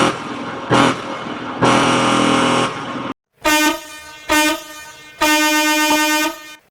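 Mack truck air horn sound effect in two edited variations, each two short blasts followed by a long one. The first sounds rough and noisy; after a brief silence the second is a cleaner, clearly pitched horn.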